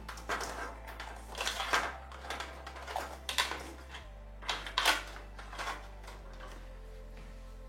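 Irregular clicks, taps and light rattles of plastic and metal PC parts and cables being handled inside a computer case, in small clusters with the loudest knocks about two and five seconds in.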